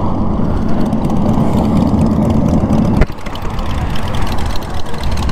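A motorcycle engine idling with a steady low hum. About three seconds in there is a sharp click, and after it a lower, rougher engine rumble carries on.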